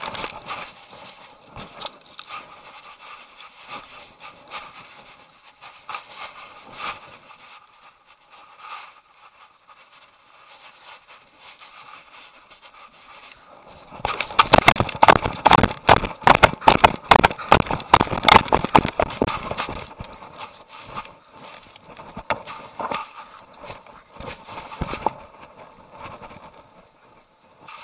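Dog-mounted camera rubbing and scraping against brush and the dog's fur as the dog pushes through undergrowth. About halfway in, a loud stretch of rapid scraping and knocking lasts some six seconds before settling back to lighter rubbing.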